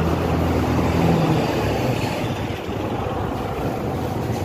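Road traffic heard from a moving motorbike: engines running with wind and road noise. A low engine hum is strongest in the first second and a half, then eases into the steady traffic noise.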